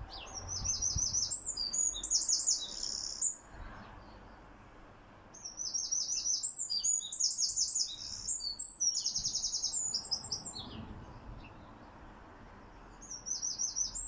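Wren singing: a fast song of high trills and rapidly repeated notes, two songs of about three and five seconds, with a third beginning near the end.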